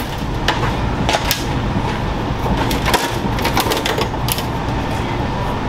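A composite body panel on an off-road race truck being pulled free by hand, giving a string of sharp irregular cracks and creaks over a steady low hum.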